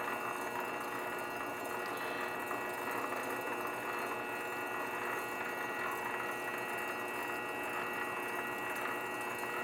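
Grizzly lathe running steadily with a painted MAPP gas bottle spinning between centres, a constant machine whine made of several steady tones.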